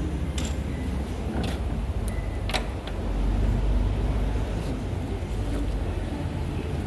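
Metal lathe running with a steady low hum, with a few short sharp clicks or knocks in the first few seconds.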